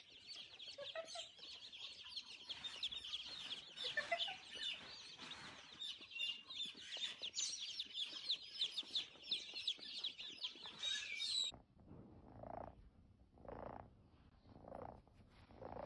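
A crowd of baby chicks peeping, many high chirps overlapping, cutting off abruptly about eleven seconds in. Then a kitten purring, a soft pulse about once a second.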